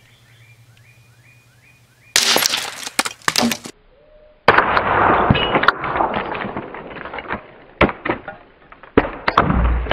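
A .22 LR rifle fires a hollow-point round into a cow leg bone, which breaks apart and throws fragments back. Loud sudden sounds come about two seconds in and again about four and a half seconds in, followed by scattered sharp knocks.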